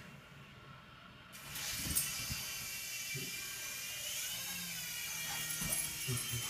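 Small remote-control toy helicopter's electric motor whirring, starting about a second and a half in, its pitch rising and falling briefly a few seconds later. A few soft knocks are heard alongside.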